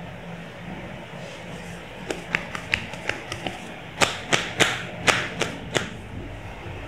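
Massage therapist's hands slapping the body in a quick series of percussive strikes: a run of lighter slaps, then about six harder, sharper ones roughly a third of a second apart.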